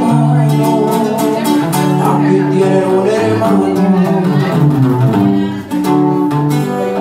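A live band plays an instrumental passage of a regional Mexican song, with sustained notes and a strummed string part. The music dips briefly about five and a half seconds in.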